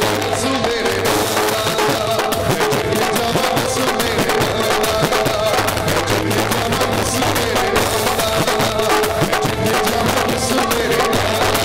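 Instrumental break of a live Punjabi devotional song: band music with a steady drum beat and sustained melodic notes, without vocals.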